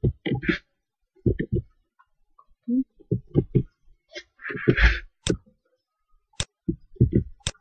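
Computer keyboard keystrokes and mouse clicks, irregular and close to the microphone, with a short breathy hiss about halfway.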